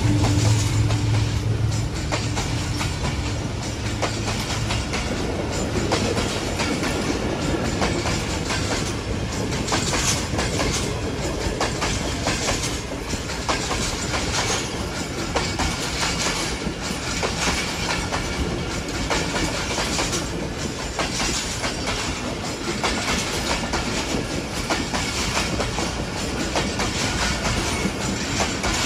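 Passenger coaches of the Pak Business Express passing close by at speed, wheels clattering over the rail joints in a steady run of clicks and rumble. A low engine drone fades out over the first few seconds.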